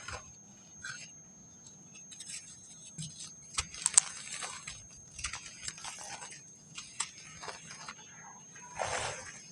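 Dry packed sand crumbling and breaking apart in a series of gritty crunches and crackles, with a sharp crack about four seconds in and a larger crumble near the end.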